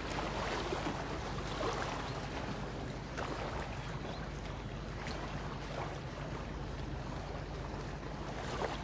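Small river waves lapping and splashing against the boulders of a stone riverbank revetment, over wind on the microphone and a low steady hum.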